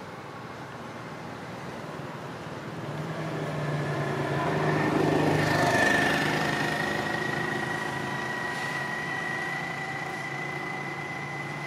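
A motor engine running steadily, growing louder to a peak about six seconds in and then fading somewhat.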